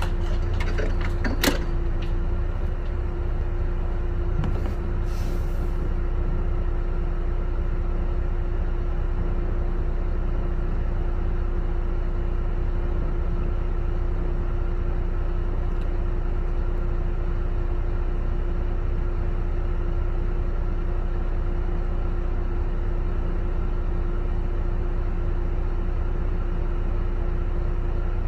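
Inside a double-decker bus: the engine running with a steady low rumble and a constant hum. A few sharp clicks come in the first two seconds, and a short hiss comes about five seconds in.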